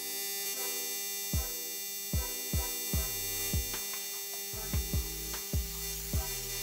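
AC TIG welding arc on an aluminium radiator tank: a steady electrical buzz with many overtones that starts sharply as the arc strikes. About nine short, low thumps at uneven intervals sound over it.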